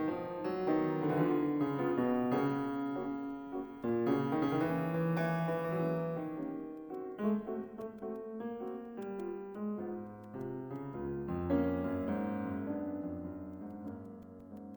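Piano music, a run of notes moving at a steady pace.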